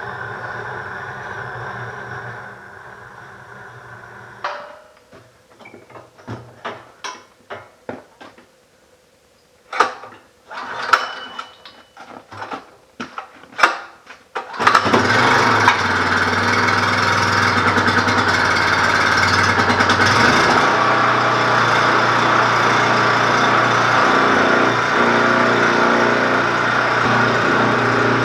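An engine running steadily, then a stretch of scattered knocks and clicks, then an engine running loud and steady from about halfway through.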